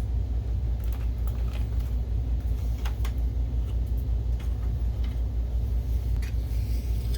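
Steady low background rumble, with a few scattered small clicks and taps as projector parts and a wire connector are handled.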